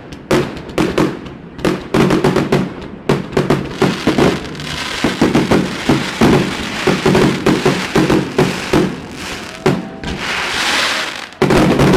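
New Year fireworks: a dense, irregular run of bangs and crackles from bursting aerial shells, with a rushing hiss lasting about a second near the end.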